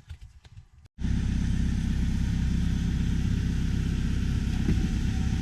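A car engine idling steadily, coming in abruptly about a second in after a brief quiet moment.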